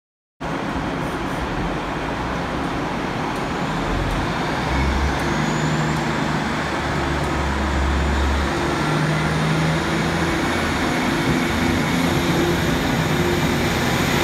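Class 150 Sprinter diesel multiple unit's Cummins diesel engines running, with a thin high whine that climbs slowly in pitch from about four seconds in.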